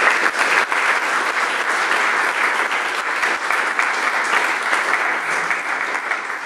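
Audience applause: many hands clapping, dense and steady.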